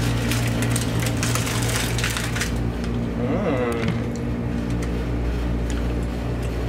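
A steady low electrical hum runs throughout, with a few light clicks near the start. About three and a half seconds in there is a brief wavering pitched sound.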